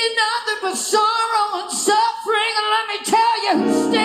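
Woman singing a gospel song, gliding between and holding notes with little or no accompaniment; instruments come back in near the end.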